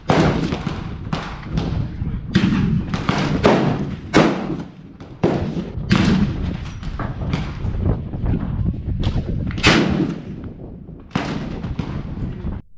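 Gunfire on a shooting range: a rapid, irregular string of sharp shots, at times two or three a second, each with a short echo. The pace is too quick for one bolt-action rifle, so the shots come from several guns.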